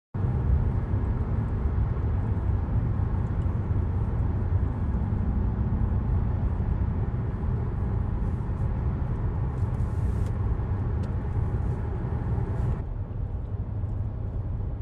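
Steady low rumble of engine and road noise heard from inside a moving car.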